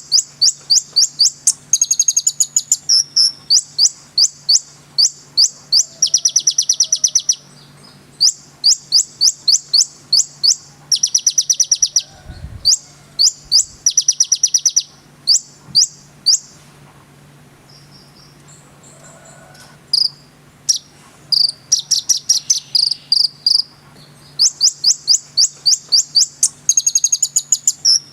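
A konin songbird singing in rapid runs of sharp, high-pitched chirps, each run a second or two long, with a pause of a few seconds a little past the middle. A faint steady hum sits underneath.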